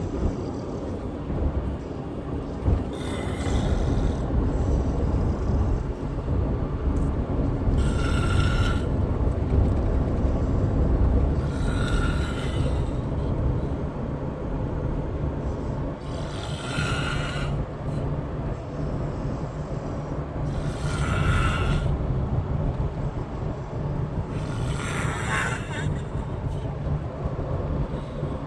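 A person snoring loudly, a rasping breath with a whistling edge about every four seconds, over a steady low rumble.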